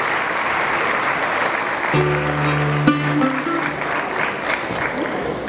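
A large audience applauding. About two seconds in, a few held music notes come in, one of them plucked, and they fade out soon after while the clapping goes on.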